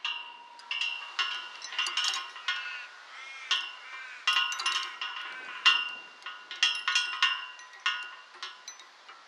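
Metal hand rings and chains of an old maypole flying-chain swing jingling: irregular clinks of ring on ring and ring on pole, each ringing on with a bell-like tone, sometimes several strikes a second.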